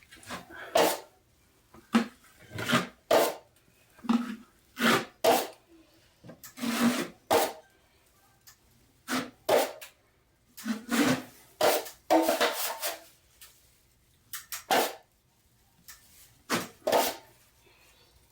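A steel drywall taping knife scraping joint compound across a drywall ceiling patch. It goes in a series of short, irregular strokes, about a second apart.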